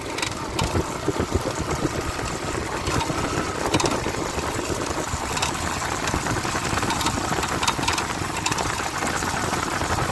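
Yamaha Fazer 150 single-cylinder motorcycle being ridden, engine running with road noise, with occasional light knocks from the chassis. The mechanic traces the knocking to the drive chain striking its chain guide, with loose brake pads also rattling.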